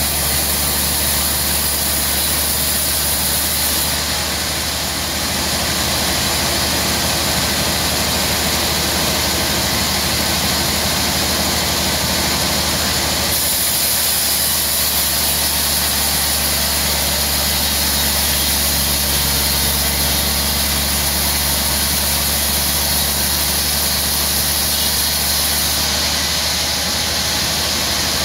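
Large sawmill band saw running steadily while its blade cuts lengthwise through a log: a constant low machine hum under a high hiss that shifts in level a few times.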